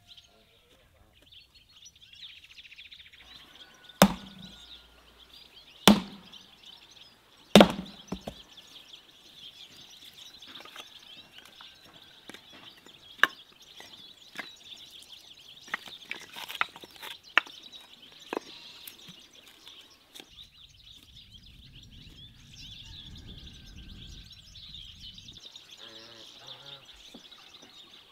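Three hard axe blows splitting firewood on a wooden chopping block, about two seconds apart, followed by lighter scattered knocks of split logs being picked up and stacked. Birds chirp steadily throughout.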